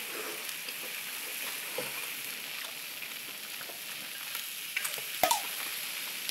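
Slices of hanwoo flat-iron steak sizzling on a hot cast-iron griddle, a steady frying hiss. A sharp click about five seconds in as chopsticks work against the pan.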